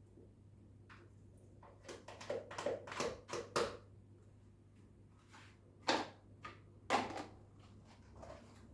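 Kitchen handling knocks and taps as ingredients and containers are moved around a blender: a quick run of clattering taps about two seconds in, then two sharper single knocks near the end, over a steady low electrical hum.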